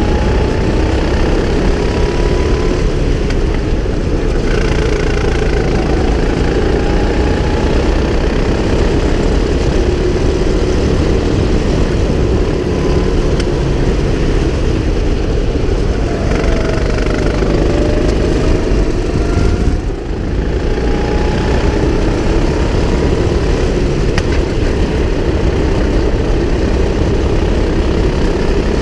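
Go-kart engine running under the driver's seat as the kart laps the track, its revs rising and falling through the corners and straights, with a brief drop about two-thirds of the way in.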